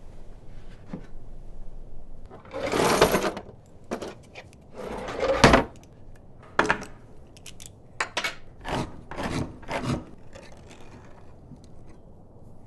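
A tin can scraping on a wooden tabletop in two longer strokes, then a hand-held can opener cutting round the lid in a run of about six short rasping turns.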